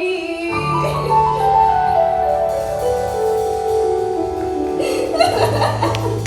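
Live gospel-style music: a singer's held note ends about half a second in, then sustained keyboard notes step downward over a steady bass note. Voices come back in near the end.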